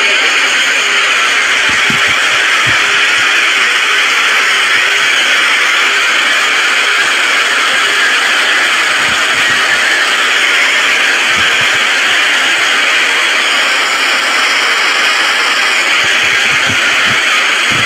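Cacophony of many video soundtracks playing at once, merging into a loud, steady wash of noise with no single sound standing out.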